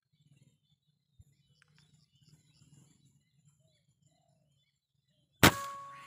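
A single rifle shot near the end: one sharp crack followed by a short metallic ring that fades out. Before it, faint bird chirps, a quick run of about five short high notes.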